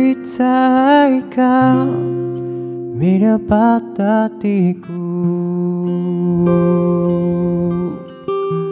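A man singing in Amis to his own acoustic guitar: a few sung phrases, with a run of four short clipped syllables about three seconds in, then longer sustained notes over the guitar.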